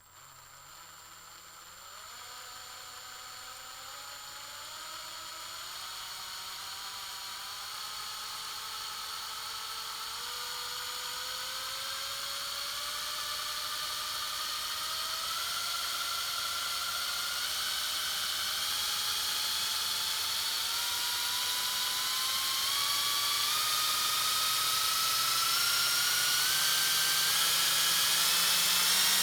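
Electric drill whirring as it speeds up slowly, its whine climbing in pitch and getting louder throughout.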